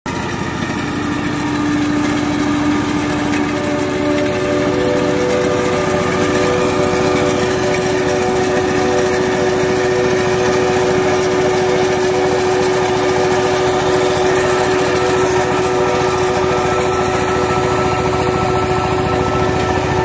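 Small self-propelled rice combine harvester running steadily while it cuts and threshes rice: a continuous engine hum with several held tones over it.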